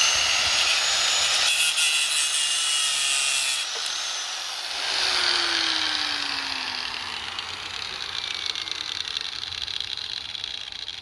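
Power tool working the steel control lever of a skid steer, running at speed with a dense, high-pitched grinding whine. About four seconds in it is let go and winds down, its pitch falling slowly as the motor coasts to a stop.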